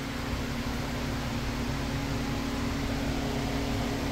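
Steady mechanical room hum with a strong low tone and an even hiss over it, unchanging throughout.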